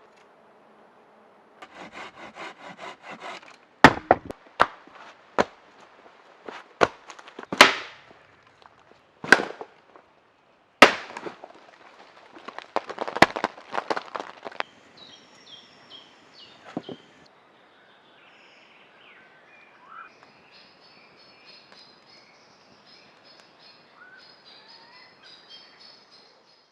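A string of sharp, loud cracks and snaps with crackling between them, wood being broken or struck while building the shelter. From about the middle on, birds chirp with short repeated high notes.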